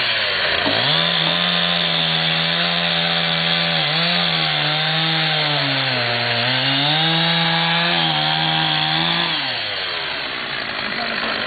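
Chainsaw cutting into a log. The engine speeds up about a second in, sags in pitch twice as it bogs down in the cut, and slows down near the end.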